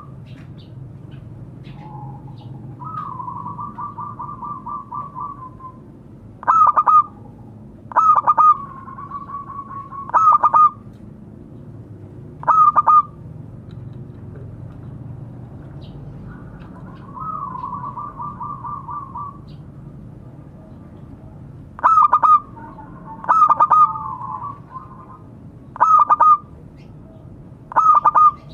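Zebra dove (perkutut) cooing: loud, short calls repeated every couple of seconds, with softer, rapid, trilled coo phrases between them, over a low steady background hum.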